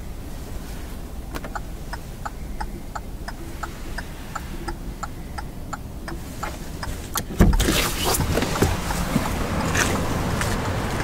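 A steady series of short ticks, about three a second, for roughly six seconds, then a sudden loud thump about seven seconds in, followed by a steady rushing noise.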